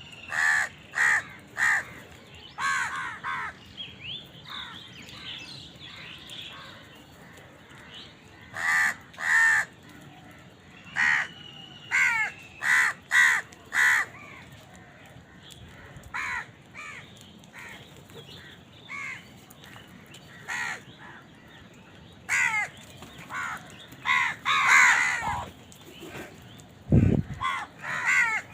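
Crows cawing repeatedly, harsh calls coming in quick runs of two to five with pauses between.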